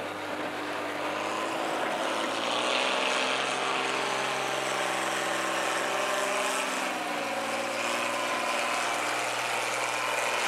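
Engine running steadily, its pitch stepping up a second or two in and dropping back about seven seconds in.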